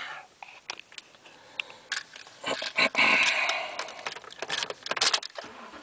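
Keys clicking and jingling at the truck's ignition as the key is handled: a run of small, sharp, irregular clicks, with a short rush of noise about three seconds in.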